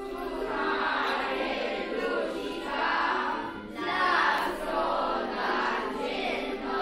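Background music of a choir singing, with long held notes.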